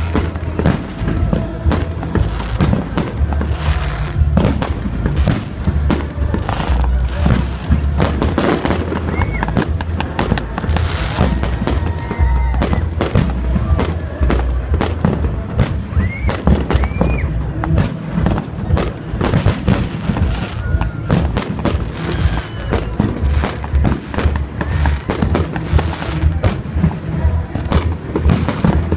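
Fireworks display: a continuous run of sharp bangs and crackles, several a second, over a low rumble.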